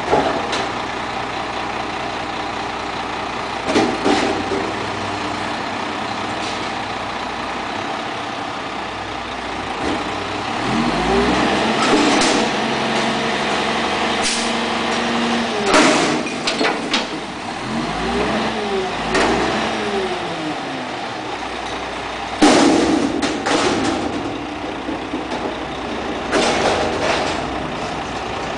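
Front-loader garbage truck with a Wittke body running while its hydraulic arms lift a steel dumpster over the cab, empty it into the hopper and lower it. The engine revs up and down twice, in rising and falling tones, and the container bangs and clanks sharply several times.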